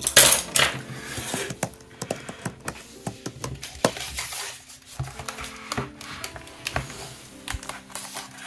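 Metal paint palette tin being wiped and handled on a wooden desk: a scrubbing rub in the first second or so, then many light metallic clicks and taps as the tin is moved about.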